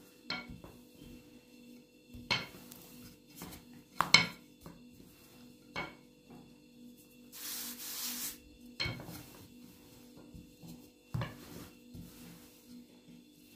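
Scattered clinks and knocks of kitchen dishes and utensils being handled, loudest about four seconds in, with a short rustle just before the middle.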